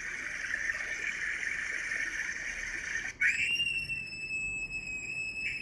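A rushing water-pouring sound effect, then a little past halfway a high, steady, drawn-out scream sound effect begins.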